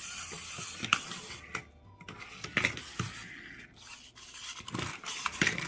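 Small toys and their packaging being handled: rubbing and scraping, with several sharp clicks or taps spread through.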